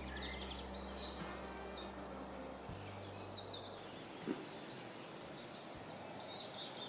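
Faint outdoor birdsong: small birds chirping over and over, with a steady low hum underneath.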